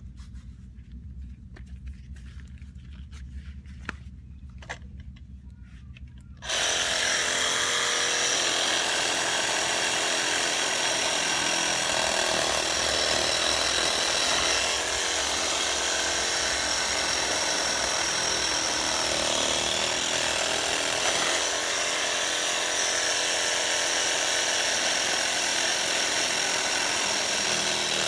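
Ryobi reciprocating saw starting suddenly about six and a half seconds in and running steadily, its blade cutting into a fresh coconut. Before it starts, a few faint knocks and clicks of handling.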